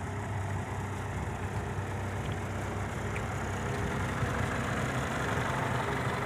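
Diesel engine of a Hino dump truck idling steadily.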